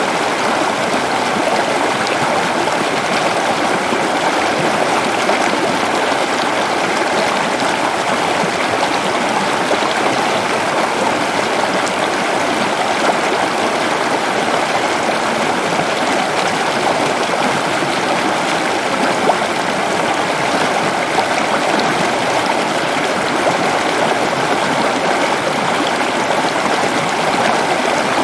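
Waterfall in a forest: a steady, unbroken rush of falling water.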